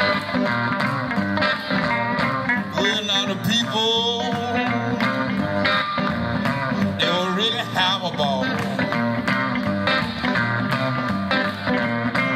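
Live blues boogie on acoustic and electric guitars: a steady driving rhythm with a lead line of bent notes over it.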